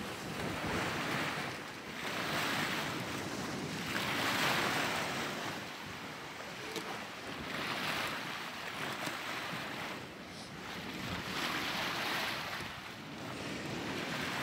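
Sea water rushing and hissing past the hulls of a sailing catamaran under way, swelling and easing every couple of seconds as waves and the wake pass, with wind on the microphone.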